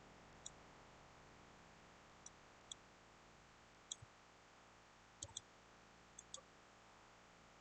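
Computer mouse buttons clicking: about nine short, sharp clicks at uneven intervals, some in quick pairs, over a faint steady hiss.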